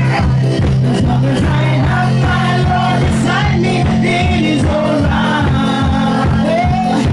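Loud worship music: singing voices over a band with a steady bass and a regular beat.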